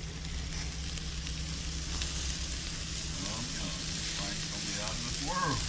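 Hamburgers and french fries frying in hot corn oil on a camp stove, giving a steady sizzle.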